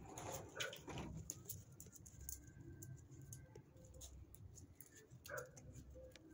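Faint sounds of puppies moving about on a tiled floor, claws clicking, with a couple of short whimpers.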